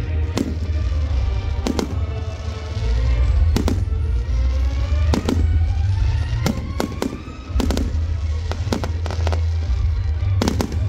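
Fireworks display, with shells and rockets going off in a string of sharp bangs roughly every one to two seconds.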